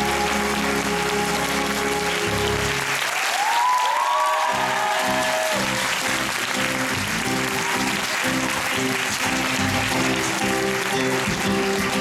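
Audience applauding over the musical's curtain-call music.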